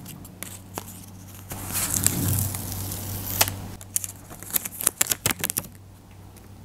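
Paper being handled: a paper cut-out marker and its paper strip rustling and crinkling, with a stretch of rustling about a second and a half in and a quick run of crinkles and taps near the end.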